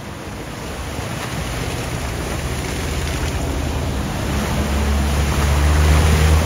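A vehicle driving through a flooded ford. The rush of water thrown up by its wheels and the low hum of its engine grow steadily louder as it approaches.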